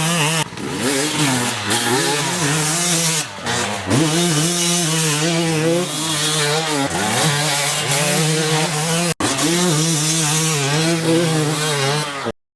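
250cc two-stroke dirt bike engine being ridden hard, its revs rising and falling again and again, with a few abrupt breaks where the footage cuts.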